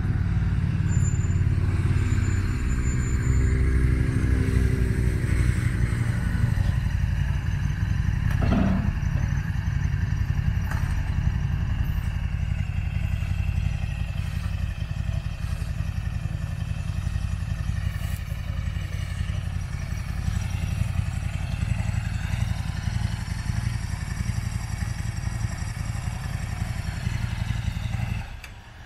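Steam rack locomotive working, with a steady, rapid, loud beat, and a brief sharp sound about eight seconds in. The sound cuts off suddenly just before the end.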